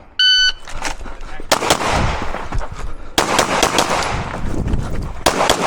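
A shot timer's start beep, then a fast string of 9mm pistol shots from a Glock 17 beginning about a second later, fired in quick groups with brief pauses between them.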